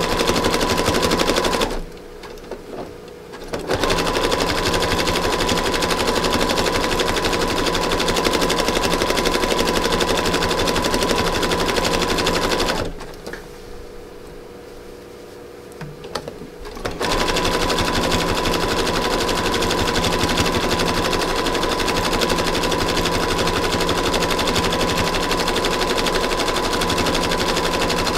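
Electric sewing machine zigzag-stitching through fabric-covered rope, running with a fast, even clatter of needle strokes over a steady motor whine. It stops twice, briefly about two seconds in and for about four seconds around the middle, then runs on.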